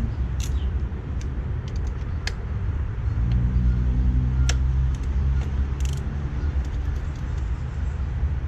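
Scattered metallic clicks and clinks of hand tools on engine mount bolts being tightened to torque, over a steady low rumble that swells for a couple of seconds in the middle.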